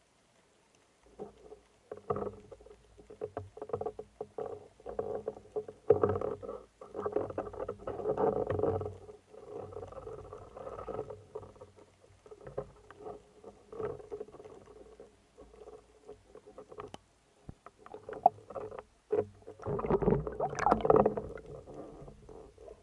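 Underwater irregular crackling clicks and knocks over a faint steady hum, starting about a second in and loudest near the end.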